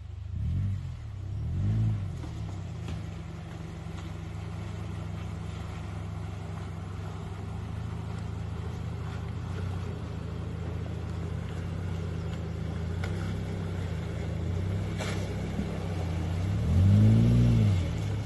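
2009 Subaru Forester's flat-four boxer engine running as it drives through a water crossing, revved up and back down twice briefly near the start and once more, loudest, near the end.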